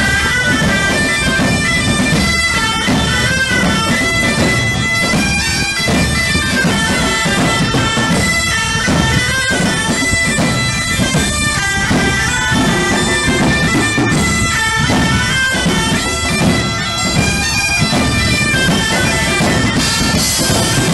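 Music played on bagpipes: a melody that moves between held notes at a steady, even loudness.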